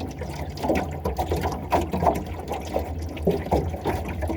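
Water sloshing and splashing in irregular small bursts as a largemouth bass is let go back into the lake, over a steady low rumble.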